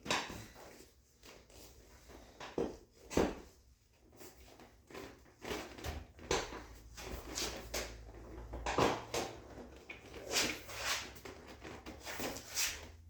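Irregular knocks, clunks and scrapes of parts and hand tools being handled while fitting a motorcycle seat, with a few louder knocks near the start, about three seconds in, and around nine seconds in.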